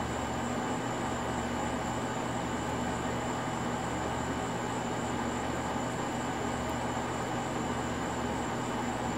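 Steady outdoor night ambience: an even hiss with a constant low hum beneath it and a steady high-pitched whine near the top, unchanging throughout.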